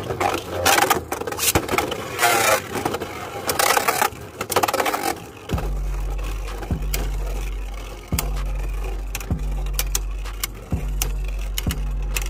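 Two Beyblade Burst tops launched into a stadium, spinning and clashing with loud, irregular scraping and knocking for about five seconds. Then a steady low bass note with a beat about once a second takes over.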